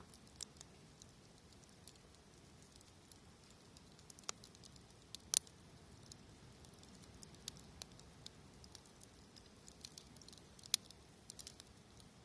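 Wood fire crackling with irregular sharp pops and snaps, a few louder ones, over a faint steady wash of sea waves.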